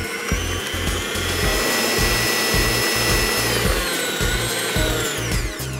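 Electric stand mixer beating buttercream, its motor whining steadily at speed, then winding down in pitch over the last two seconds as it is switched off.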